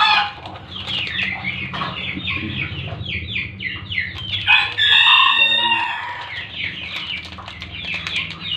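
Chickens clucking among many quick, high, falling chirps, with a rooster crowing once, loud and drawn out for about a second and a half, about halfway through.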